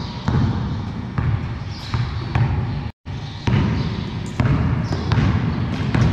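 A basketball bouncing on a concrete floor in a large, bare hall: irregular dribbles and thuds that echo, with one brief dropout in the sound about halfway through.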